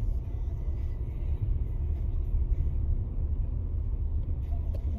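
Steady low rumble of a car heard from inside its cabin, with one short click near the end.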